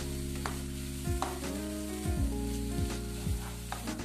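Egg and sausage sizzling in a non-stick wok while a wooden spatula stirs and knocks against the pan, with sharp scrapes about every half second to a second. Soft background music runs underneath.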